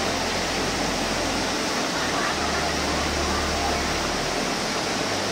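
Steady rush of white water from a waterfall's cascade tumbling over rocks.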